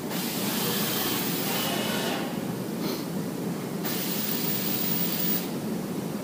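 CNC milling machine running an automatic tool-length measurement cycle on its tool setter: a steady hiss whose brighter part cuts in and out several times.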